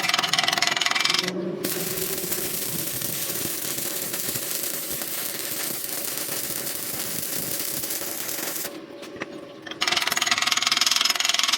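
Arc welding: a harsh crackling hiss. It comes in bursts that begin and end abruptly, one about a second long at the start and one nearly two seconds long near the end, with a steadier hiss between.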